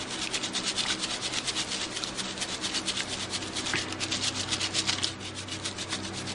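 Metal mesh sieve being swirled round in a bucket of wet clay slip, a fast, even rasping scrape that repeats several times a second, as raw dug clay is washed through the mesh and mostly grit is left behind.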